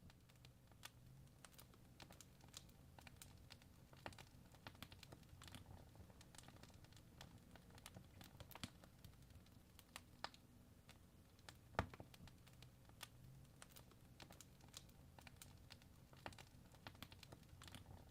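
Faint crackling fire: irregular small snaps and pops over a low hum, with one sharper pop about twelve seconds in.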